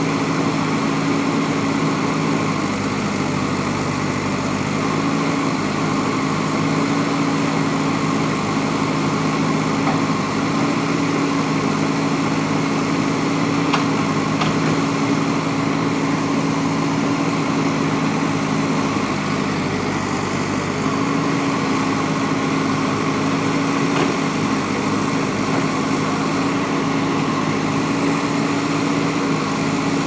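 JCB backhoe loader's diesel engine running steadily while the backhoe arm works, its pitch shifting slightly a few times. A few faint clicks are heard around the middle and later on.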